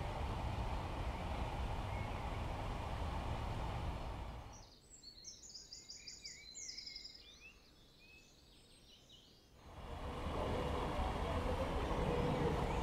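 Steady low rushing outdoor noise that drops away about four and a half seconds in, leaving about five seconds of small birds chirping, with one quick trill; then the rushing noise returns.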